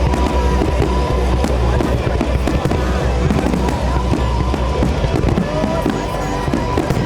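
Fireworks going off without a break, dense crackling over low booms, with music playing at the same time.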